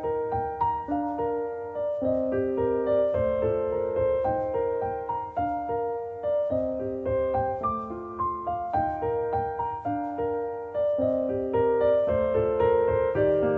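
Background piano music: a gentle melody of single notes and chords played at an unhurried steady pace.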